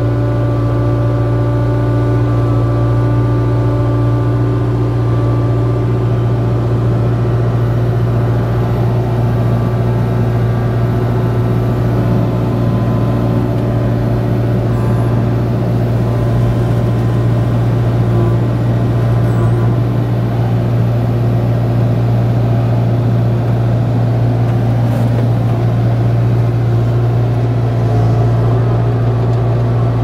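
Kubota KX057-4 mini excavator's diesel engine running steadily under hydraulic load as the boom, bucket and thumb grab and lift a log, with a deep even hum and higher whining tones that shift about seven seconds in.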